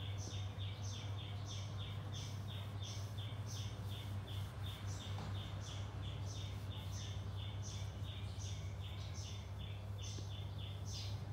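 Rhythmic high chirping: short chirps about five times a second, with a higher-pitched chirp about every half-second, over a steady low hum.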